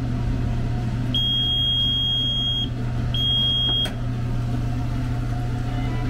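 Commercial convection oven's timer beeping at the end of its cooking time: one long high beep of about a second and a half, then a shorter one cut off by a click, over the oven's steady hum.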